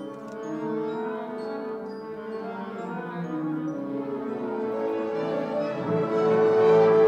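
Symphony orchestra playing a slow passage of sustained chords, growing steadily louder toward the end.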